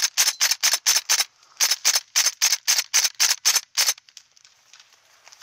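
Gas-blowback airsoft M14 rifle firing rapid shots, about four a second, in two strings with a short break a little over a second in; the firing stops about four seconds in.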